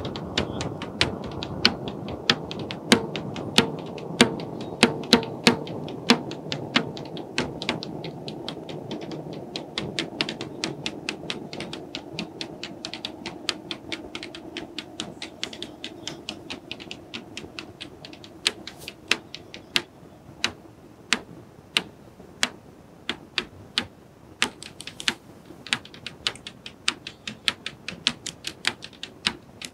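Sharp wooden knocks and clicks, several a second in an uneven rhythm, strongest in the first seven seconds. A low background haze under them fades after about eight seconds.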